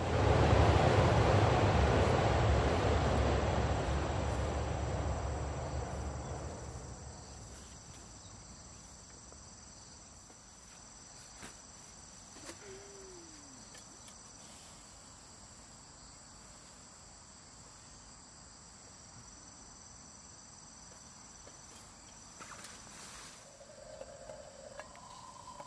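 Insects trilling steadily at a high pitch. A loud rushing noise at the start fades away over about six seconds.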